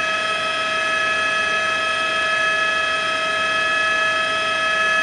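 Steady mechanical whine of a helicopter carrying the aerial camera: several fixed high tones over a constant hiss, unchanging throughout.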